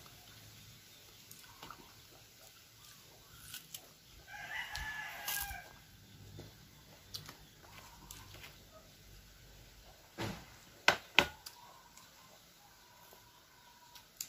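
A rooster crowing once, for about a second and a half, a few seconds in. Later, two sharp clicks in quick succession, the loudest sounds.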